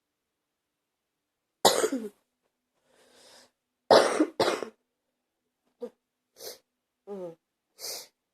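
A person with a bad cold coughing: one harsh cough about a second and a half in, a breath in, then two coughs in quick succession around the four-second mark. Softer breathing and a short throaty sound follow.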